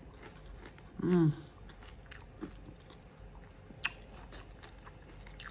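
A person chewing food, with faint wet mouth clicks and one sharper click late on. About a second in comes a short hummed "mm" of enjoyment.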